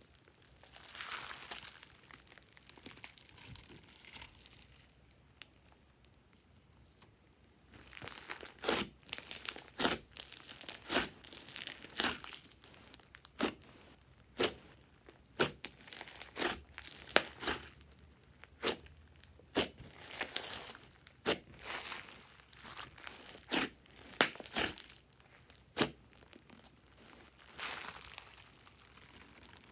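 Slime being pressed, stretched and poked by hand: soft squishing at first, then from about eight seconds in a long run of sharp pops and crackles as air pockets in the slime snap, easing off near the end.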